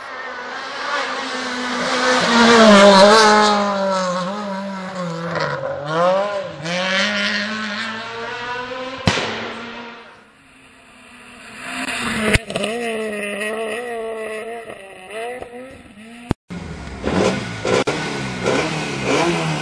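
A rally car at full throttle approaching and passing on a tarmac stage, its engine note climbing and dropping through the gears. The sound cuts off about nine seconds in, and a car engine then runs steadily. Near the end a BMW 3 Series rally car's engine is revved, rising in pitch.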